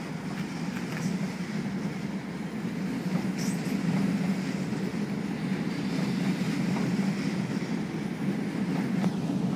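A train rumbling through the station, a steady low rumble growing louder over the first few seconds and then holding, with a faint high wheel squeal about halfway through.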